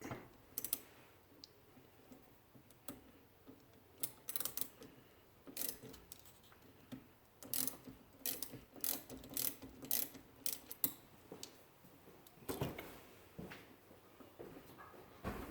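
Hand tools working on a car: a socket ratchet clicking in short runs as nuts or bolts are loosened, with clinks of metal tools. A duller knock comes near the end.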